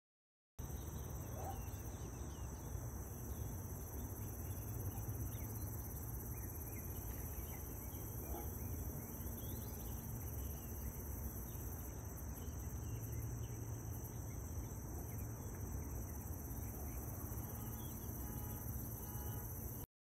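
Steady high-pitched insect trill, as from crickets, over a constant low rumble, with a few faint short chirps scattered through.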